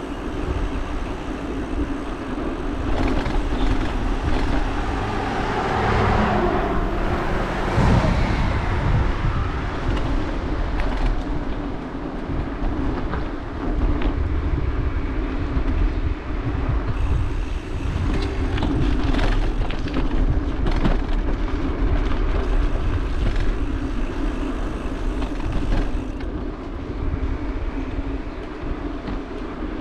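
Bicycle ride recorded on a GoPro: steady wind and road rumble on the microphone, with short rattles from the bike over the pavement. Passing traffic, with one vehicle swelling past about six to eight seconds in.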